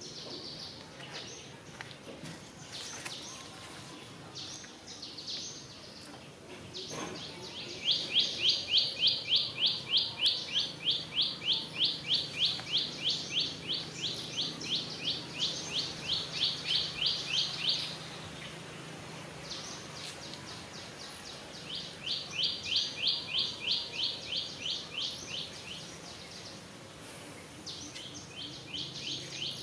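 A bird calling in a rapid, even series of short high chirps, about four or five a second, in three long bouts, the first lasting about ten seconds.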